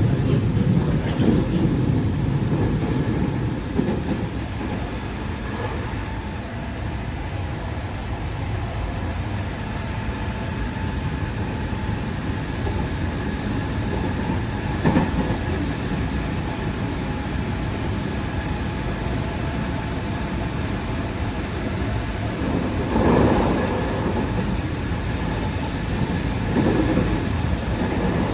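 JR West 207 series electric commuter train (Toshiba GTO inverter set T17) running at speed, heard from inside the car: a steady rumble of wheels on rail with a faint steady whine. A few louder clacks of wheels over rail joints come in the middle and toward the end.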